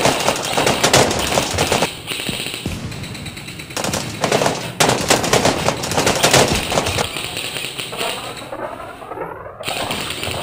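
Airsoft guns firing rapid full-auto strings of clacking shots. There are two long strings: one at the start and another from about four seconds in, tailing off into a quieter stretch near the end.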